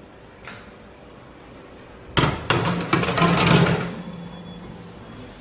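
Metal baking tray set down with a sudden clatter on the oven's wire rack about two seconds in, then scraping and rattling as it is slid into place for about two seconds.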